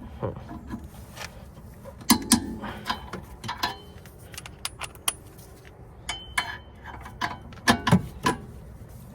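Metal hand tools and sockets clinking and tapping against each other and the wheel hub as a socket or wrench is fitted to the hub-assembly bolts. The clinks are irregular, some ringing briefly.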